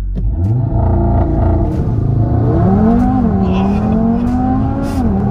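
Audi TT RS turbocharged five-cylinder engine heard from inside the cabin, accelerating hard through the gears: the engine note climbs and drops sharply at an upshift about three seconds in and again near the end.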